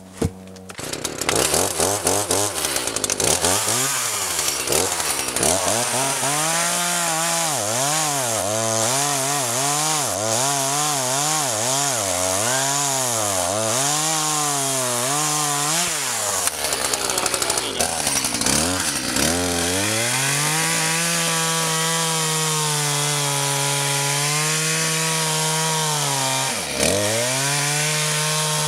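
Two-stroke chainsaw bucking logs into firewood. For the first half the engine pitch swings up and down about once a second as the saw is revved and eased through the cuts. From about two-thirds of the way in it holds a steady high pitch under load, with one brief dip near the end.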